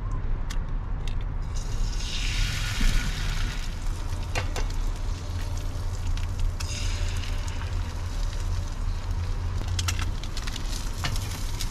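Bacon frying in a small pan, sizzling in waves, with scattered clicks of a fork and knife against the pan and a steady low hum underneath.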